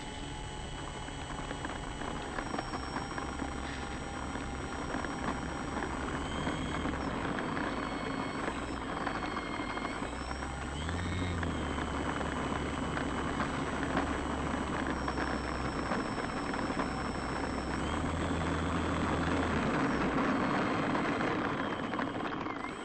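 Brushless electric motor and propeller of a HobbyKing TL2000 RC model plane running, heard from an onboard camera: a buzzing whine that shifts up and down in pitch as the throttle changes, growing louder toward the end and then easing off.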